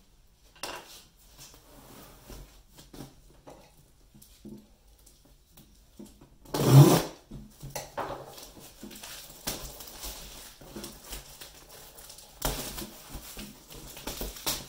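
A cardboard boot box in a plastic shipping mailer being handled on a table: a loud thump about seven seconds in as the box is stood on end, then the plastic mailer crinkling and tearing as it is ripped open.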